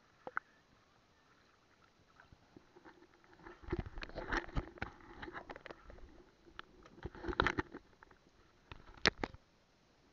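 Handling noises at the side of a small boat: scattered knocks, taps and rubbing, bunched into two busy clusters about four and seven seconds in, with a sharp click just after nine seconds.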